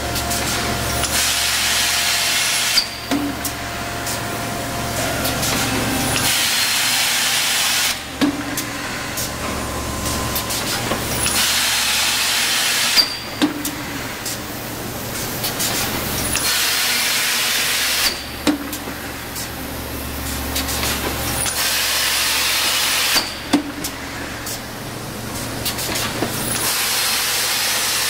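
Thermoforming machine running through its cycle about every five seconds: each cycle brings a sharp clunk and a few seconds of loud air hiss, over a steady low motor hum.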